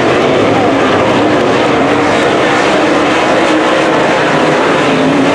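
Dirt late model race car's V8 engine running hard at racing speed: a loud, steady drone whose pitch wavers slightly.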